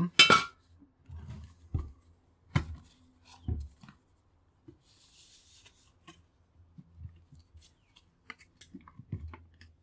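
Metal parts of a power tool being handled and knocked during disassembly: a sharp clink at the start, a few separate knocks over the next few seconds, a short hiss about five seconds in, then light clicks and rattles.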